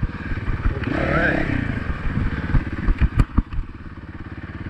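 Honda dirt bike's single-cylinder engine running at low trail speed, its revs rising briefly about a second in. Sharp knocks and clatter from the bike on the rough trail, several close together about three seconds in.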